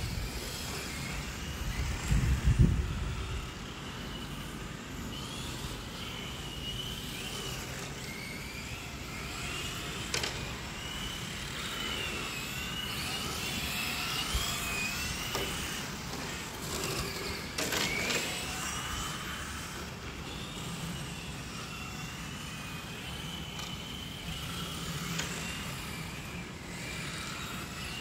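Electric Tamiya TT-02 1/10-scale RC touring cars driving on asphalt: a high motor and gear whine that rises and falls with the throttle, over tyre noise. A brief low rumble comes about two seconds in, and there are a couple of sharp knocks later.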